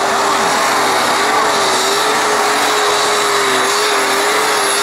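Super Stock pulling tractor's turbocharged, methanol-fuelled engine running flat out under load during a pull, a loud, steady note that wavers slightly in pitch.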